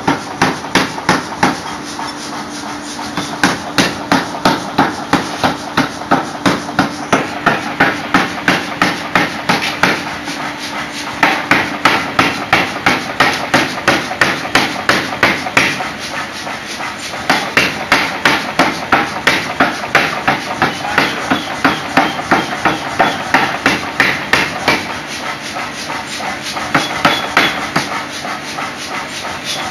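Mechanical power hammer pounding a glowing Damascus steel billet, about three heavy blows a second, in runs broken by short pauses while the smith repositions the bar.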